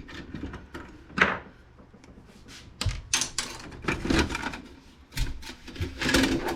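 Plastic clicks, knocks and scrapes as the scanner glass panel is pried out of an inkjet printer's plastic housing: one sharp knock, then a quick run of clacks and rattles.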